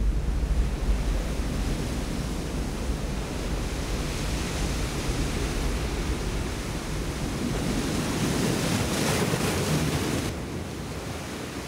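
Surf breaking against a rocky shore: a steady wash of waves that builds about eight seconds in, then falls away sharply just after ten seconds.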